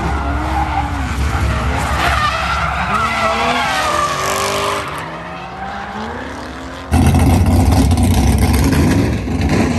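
Drift cars sliding around a track, engines revving up and down against tyre squeal. About seven seconds in it cuts to a louder, steady low rumble.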